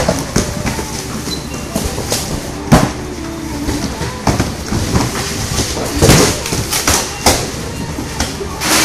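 Cardboard shipping boxes being opened and unpacked by hand on a metal roller conveyor: rustling cardboard and flaps, items and boxes knocking and clattering, with a few sharper bangs, the loudest about three seconds in and again around six and seven seconds in.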